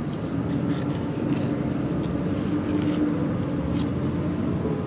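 A steady mechanical drone from a running motor, holding an even pitch with a few faint clicks over it.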